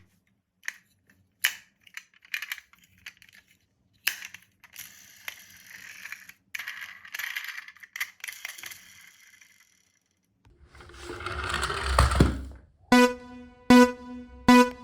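Small plastic toy cars being handled and rolled: scattered sharp clicks, then a faint rattle of little wheels rolling, and later a louder rushing rumble. Near the end come a few short pitched electronic beeps.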